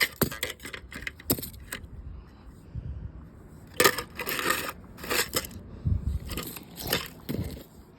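A broken plastic alarm clock being knocked and handled: a string of clicks, rattles and sharp knocks from its loose parts, the loudest knock about four seconds in and several more after it.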